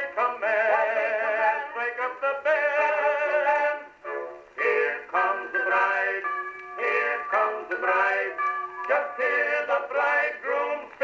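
An Albany Indestructible phonograph cylinder from 1909 playing on an Edison phonograph. The music is an acoustic-era recording of a comic duet, thin and narrow in tone with no bass.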